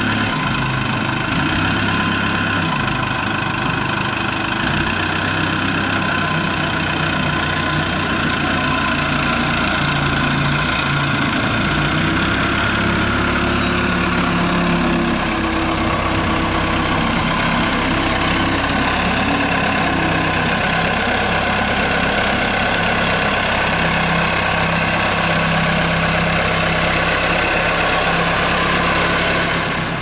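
Sellick SD-80 rough-terrain forklift's engine running steadily as it carries a log, its pitch shifting a few times as the engine speed changes.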